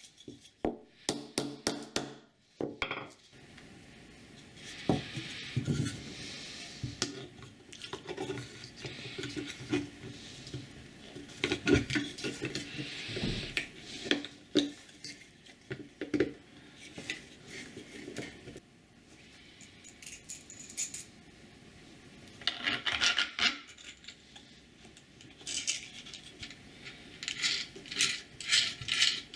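White PLA 3D-printed parts being handled and fitted together: irregular plastic knocks, clicks, clatter and rubbing. A quick run of sharp taps comes in the first couple of seconds.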